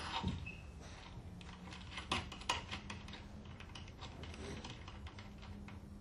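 Small steel screws and nuts clicking and tapping against the stainless-steel actuator bracket of an Alfa Laval LKB-2 butterfly valve as they are fitted by hand. An irregular scatter of light clicks, the loudest two a little after two seconds in.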